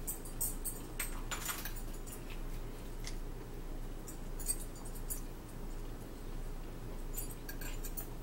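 Eating sounds at a table: scattered clicks and small scrapes of a fork on a plate, with mouth noises of chewing, over a steady low room hum.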